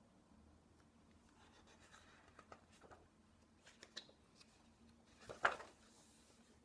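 Paper page of a picture book being turned by hand: faint rustling as the page is lifted, then a louder brief swish about five and a half seconds in as it goes over and is smoothed flat.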